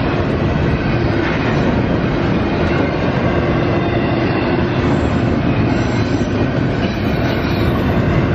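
Double-stack intermodal container freight train rolling steadily past, its wagons and wheels on the rails making a loud, continuous noise.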